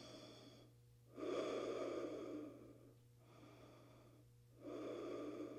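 A woman breathing slowly and audibly close to the microphone while holding a yoga pose, in long even breaths. Two stronger breaths of about a second and a half each alternate with quieter ones.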